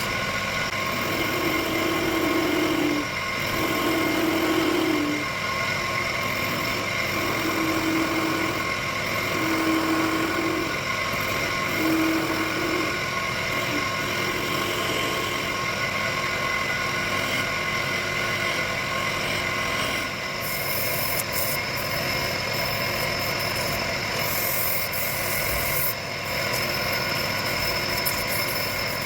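Wood lathe running steadily, its motor giving a constant hum, with a few short tones about a second long coming and going in the first half.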